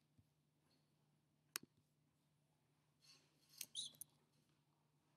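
Near silence with a faint steady hum, broken by a single computer-mouse click about one and a half seconds in and a short run of light clicks and rustling a little past the middle, as links in a web browser are clicked.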